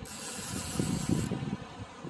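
Wind buffeting the microphone in irregular gusts, with a high hiss that cuts off a little over a second in.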